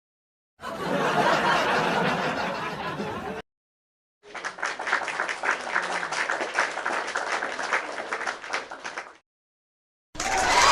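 Canned stock sound effects played one after another with silent gaps: about three seconds of crowd noise with laughter, then about five seconds of applause with rapid clapping. A new effect with gliding tones starts near the end.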